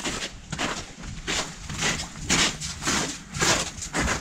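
Footsteps crunching on packed snow and slush at a steady walk, about two steps a second.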